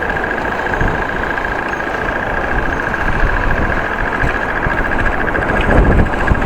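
Strong wind buffeting the microphone with road traffic, and a steady high-pitched tone that pulses rapidly.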